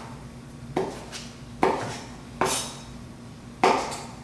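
Kitchen knife chopping raw shrimp on a cutting board: four sharp knocks of the blade hitting the board, roughly one a second.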